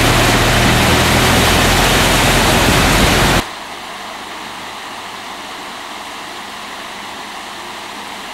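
Floodwater rushing, loud and steady with a low hum underneath. About three and a half seconds in it cuts off abruptly to a quieter, steady rush of water.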